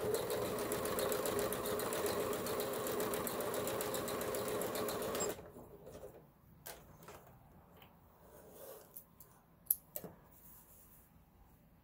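Kenmore 385.19606 computerized sewing machine running at speed and sewing a zigzag stitch, with a fast, even stitching rhythm that stops abruptly about five seconds in. A few light clicks follow.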